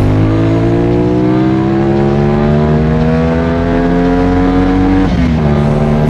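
CFMOTO 450SR-S parallel-twin engine pulling hard under acceleration, its pitch rising steadily for about five seconds, then dropping sharply with an upshift and starting to climb again in the next gear.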